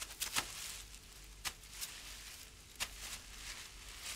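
A handful of short, sharp crackles and rustles of dry leaves and twigs as several people sit down on the forest floor, over a faint steady hiss.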